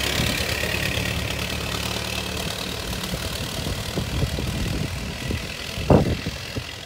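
Ford Model T sedan's four-cylinder engine running as the car drives away, fading steadily with distance. About six seconds in there is a single sharp knock of handling noise on the recording phone.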